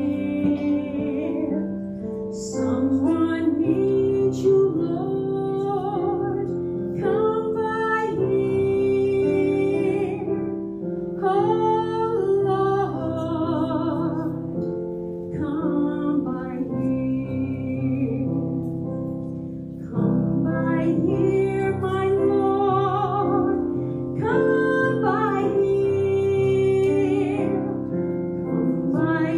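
A woman's voice singing a slow hymn-like song with instrumental accompaniment.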